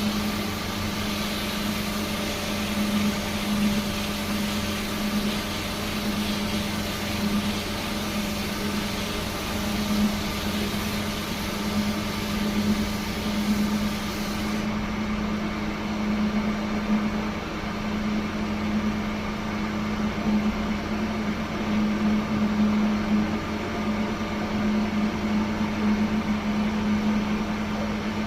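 A woodworking machine's electric motor running steadily with a pulsing hum. A higher hissing noise over it, like wood being worked, cuts off about halfway through while the motor keeps running.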